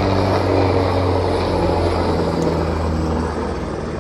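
Airbus Caracal (H225M) twin-turbine military helicopter flying low past, its rotors and engines making a loud, steady drone. The drone drops slightly in level and pitch near the end as the helicopter moves off.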